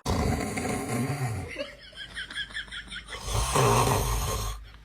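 A person snoring loudly in two long, rough breaths, the second and louder one about three seconds in. Between the snores come a short run of high, wavering vocal squeaks.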